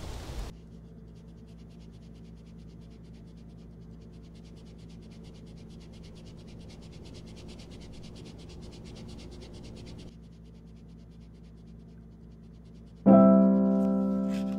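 Film score: a hiss of noise cuts off half a second in, leaving a soft, steady low drone, and about thirteen seconds in a piano chord strikes loudly and rings out, slowly fading.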